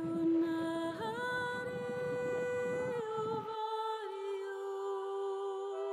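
Slow background music of long held notes with a wordless, humming character, moving to a new pitch every second or two. Under it a rushing noise runs until it cuts off suddenly about halfway through.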